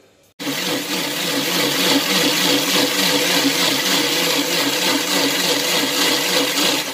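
Electric mixer grinder blending mango pieces with milk in a stainless steel jar into a purée. The motor starts suddenly about half a second in, runs steadily at full speed, and stops just before the end.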